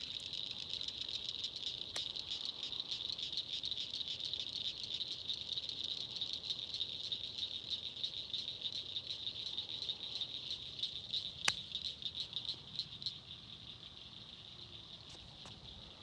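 Insects, crickets or katydids, trilling in a fast, steady, high-pitched pulsing chorus that fades about thirteen seconds in. Two sharp clicks cut through it, about two seconds in and near the twelve-second mark.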